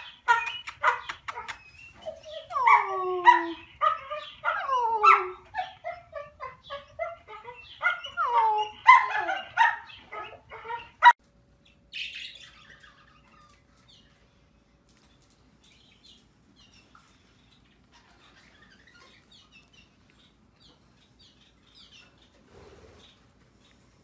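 A dog whining and yelping in a quick series of cries, each sliding down in pitch, with short sharp yips at first; the crying stops abruptly about eleven seconds in. After that there are only faint scattered small sounds.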